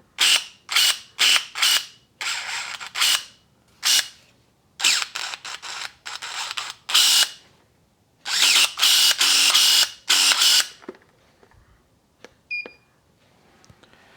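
Pellenc electric pruning secateurs running on the repaired lithium battery, the blade motor whirring in repeated short bursts: four quick strokes, then longer runs, showing the battery powers the tool again. A short beep near the end.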